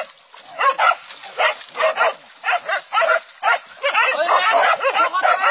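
A pack of hunting dogs barking hard while they hold a wild boar at bay. Sharp barks come about two to three a second, then from about four seconds in they crowd together into dense, overlapping barking and yelping.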